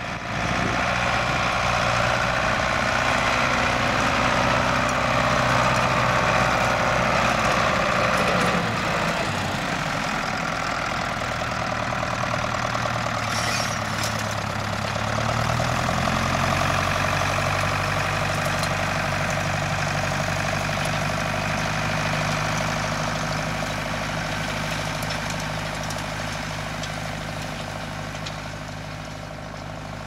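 Fendt tractor's diesel engine running steadily as it pulls a rotary hay rake through the swath, the rake working alongside. The sound drops somewhat about nine seconds in, the engine note rises around sixteen seconds in, and it fades a little near the end.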